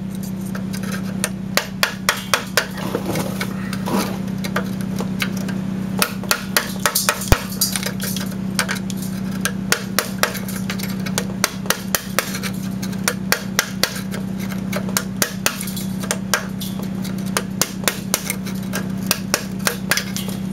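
Rapid, sharp metal-on-metal taps in irregular bursts as a screwdriver is worked against a stuck exhaust gasket on the heater box flange of a 1971 Volkswagen Beetle, chipping it off. A steady low hum runs underneath.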